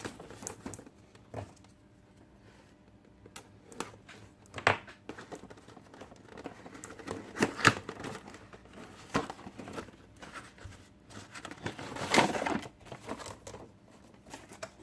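Crinkling and rustling of plastic packaging being handled and opened, with scattered clicks and taps; the loudest bursts of crackling come about five, eight and twelve seconds in.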